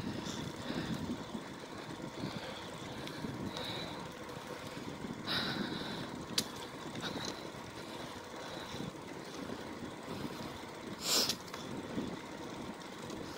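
Steady rumble of wind on the microphone and bicycle tyres rolling along a paved path while riding. There is a sharp click about six seconds in and a short, louder rattle about eleven seconds in.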